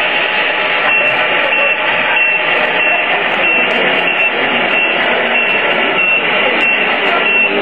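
Steady hubbub of a crowded exhibition hall, with a high electronic beep repeating about twice a second.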